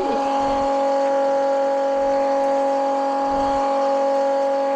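A steady, even hum at one constant pitch, like a small motor running.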